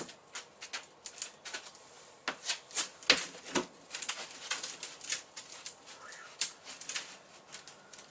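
Rubik's Cube handled in the hands: a string of irregular, sharp plastic clicks, several a second.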